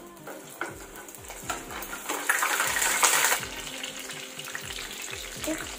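An egg frying in hot oil in a pan, sizzling and spitting steadily. The sizzle swells louder for about a second, a little over two seconds in.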